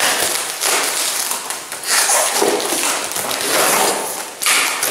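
Plastic stretch film and cardboard packaging being torn and crinkled by hand as a long parcel is unwrapped, in several uneven rushes.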